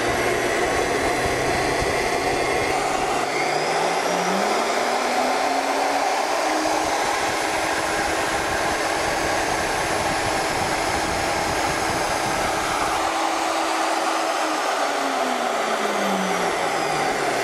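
Merax FE-50 magnetic-base drill's electric motor running free, with the annular cutter spinning in the air. Its whine climbs in pitch over the first six seconds or so as the speed potentiometer is turned up, holds steady, then falls back near the end as the speed is turned down.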